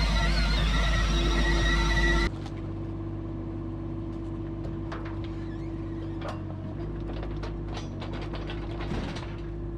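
Background music for about two seconds, then it cuts off suddenly and a Caterpillar mini excavator's diesel engine is heard running steadily. Scattered clicks and squeaks sound over the engine.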